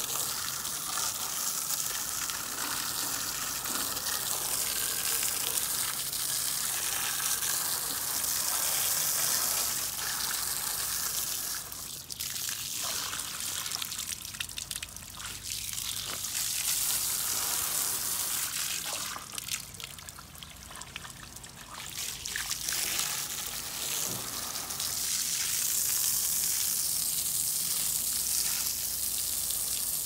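Garden hose spray rinsing foamed coil cleaner out of a dirty evaporator coil: a steady hiss of water through the fins and splashing onto the pavement, dropping off twice for a few seconds around the middle.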